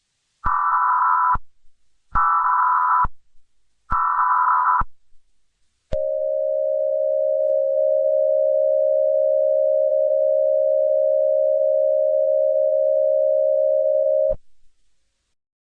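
Emergency Alert System tones: three short screeching bursts of digital header data, about a second each, then the long steady two-tone attention signal for about eight seconds, cutting off suddenly. The sequence marks the start of an emergency alert broadcast.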